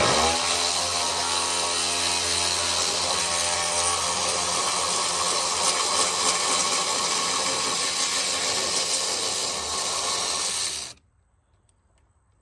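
Cordless electric ratchet running steadily as it spins out a 13 mm top bolt, with a constant motor whine, then cutting off abruptly about eleven seconds in.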